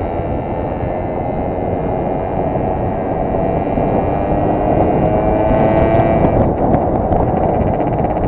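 Simson two-stroke moped engine running under way, mixed with heavy wind rush on the helmet microphone. The engine note climbs slowly, then drops about six seconds in.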